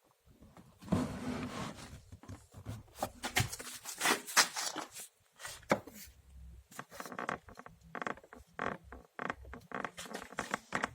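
Two plastic halves of a BMW E65's windshield defroster air duct being worked against each other by hand, giving irregular creaks and crackles, loudest about a second in and around four seconds in. The parts are rubbing together because two retaining clips were removed, and this is the source of the car's squeak under the dashboard.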